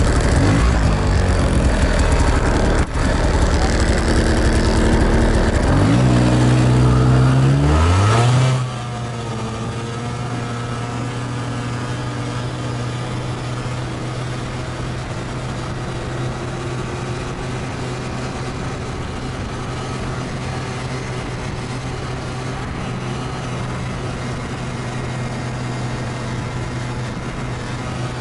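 2021 Yamaha SXVenom snowmobile's two-stroke engine at full throttle on a top-speed run. It is loud at first, its pitch climbing over the first eight seconds or so. Then it turns quieter and holds a steady drone at constant pitch.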